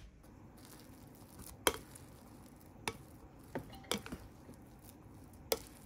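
Kitchen clatter: a handful of sharp clinks and taps of utensils against dishes and pots, the loudest about a second and a half in, as a plastic rice paddle stirs freshly cooked rice in a rice cooker's inner pot.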